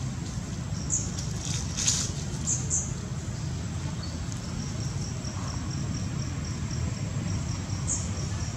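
Outdoor ambience: a steady low rumble with a few sharp high chirps and a brief crackle about two seconds in. From about halfway there is an even run of short, very high chirps, about three a second.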